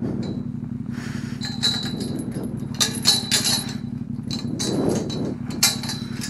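KTM 1290 Adventure's V-twin idling steadily, with a run of sharp metal clanks and clinks from about one and a half seconds in and again near the end, from the metal farm gate being worked.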